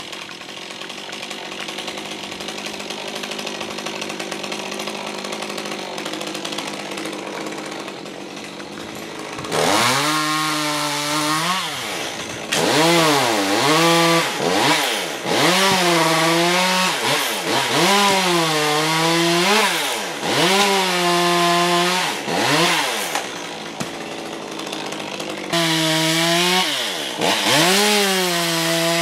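Chainsaw running at a steady speed, then from about ten seconds in revving up and dropping back again and again, roughly every two seconds, as it cuts through eucalyptus limbs.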